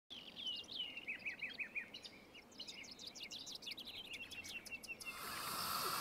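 A bird singing a series of quick descending whistled notes, then a faster run of short notes. About five seconds in, a steady hiss cuts in: a camping gas stove burner lit under a kettle.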